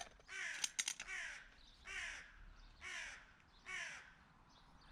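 A crow cawing four times, harsh calls about a second apart, with a couple of sharp clicks about a second in.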